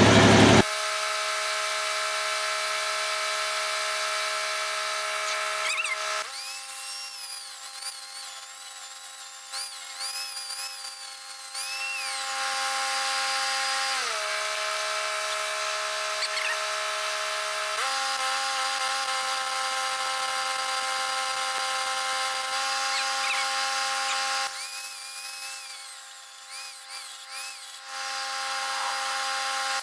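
Angle grinder running steadily, grinding back a flawed weld on steel so it can be welded over again. Its motor whine drops in pitch for a few seconds midway, then comes back up.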